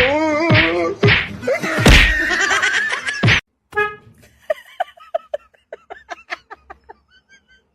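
A cat yowling in long wavering calls that stop abruptly, followed by a run of short high pips, about four a second, that fade out.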